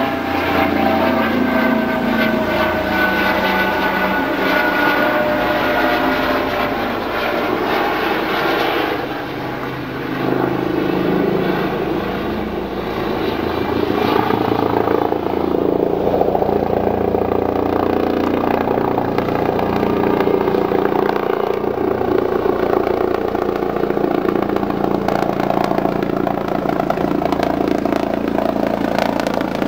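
Eurocopter EC135 twin-turbine helicopter flying overhead: steady rotor beat with turbine whine. The whine slides slightly lower in the first few seconds, the sound dips around ten seconds in, and it grows louder from about fourteen seconds as the helicopter comes overhead.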